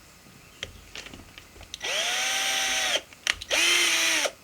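Drill driving a 4-40 tap into a 3D-printed plastic part, run in two short bursts, its motor whine rising as it spins up and falling as it stops. A few light clicks come before the first burst.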